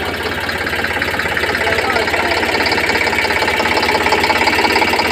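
Eicher 548 tractor's three-cylinder diesel engine running steadily at low speed, its firing beat clear and its sound slowly getting louder as the tractor drives past.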